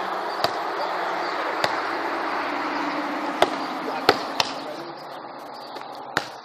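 A volleyball being struck by hands and forearms in a beach volleyball rally: about six sharp slaps spread through, two of them close together about four seconds in, over a steady background hiss.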